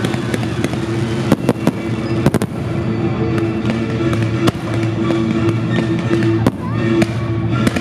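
Fireworks going off over music: sharp bangs and crackles from fountains, comets and a bursting shell, scattered through a steady musical soundtrack.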